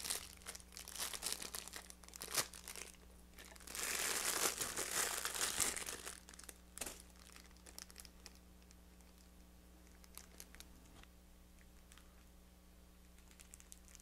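Clear plastic wrapping crinkling and rustling as it is pulled off by hand, loudest for about two seconds near the middle. After that only faint, occasional crackles.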